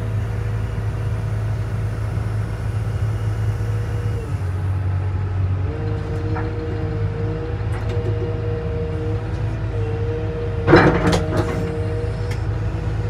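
CAT M316D wheeled excavator heard from inside its cab: the diesel engine runs steadily with a hydraulic whine that drops out about four seconds in and comes back as the boom and bucket are worked. A short loud clattering knock comes a little after ten seconds in.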